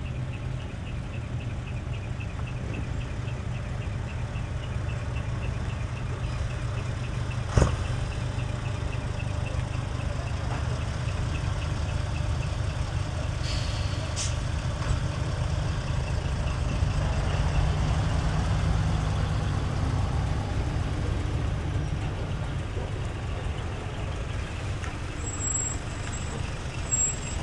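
Heavy truck diesel engine running steadily with a low rumble, with a sharp knock about a third of the way in and a brief hiss of air about halfway through.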